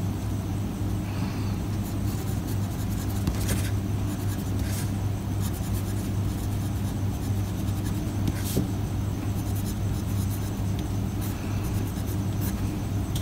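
Medium-nib fountain pen writing on paper, the nib scratching lightly with short strokes. A steady low hum runs underneath.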